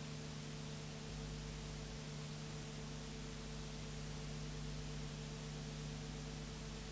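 Steady hiss with a low electrical hum underneath and no other sound: the background noise of a transferred silent film soundtrack.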